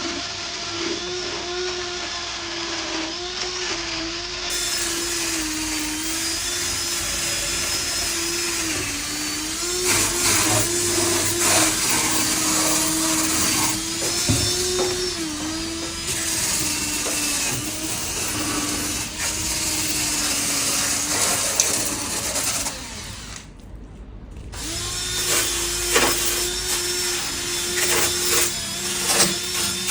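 Handheld electric power tool with a wire brush scrubbing rust off car underbody metal. The motor's pitch dips and recovers as it is pressed into the work, over a harsh scraping hiss. It cuts out briefly about three-quarters of the way through, then runs again with sharper scrapes near the end.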